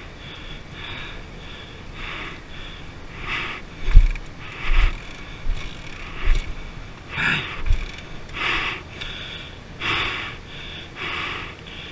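A person breathing hard, a rough breath about every second, with a few dull thumps in between.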